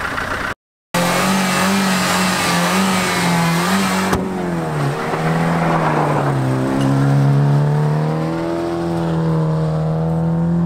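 A car engine running with its revs changing: a steady, strongly pitched note that dips and climbs several times. The sound cuts out completely for a moment about half a second in.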